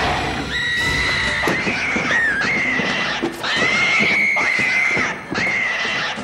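Baboon screeching: about five long, high cries in a row, each breaking off briefly before the next.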